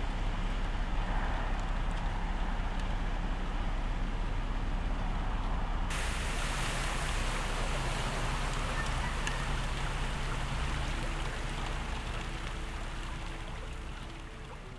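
Steady rain noise over flooded ground. About six seconds in this changes to the brighter, hissing rush of floodwater running across a street, easing a little near the end.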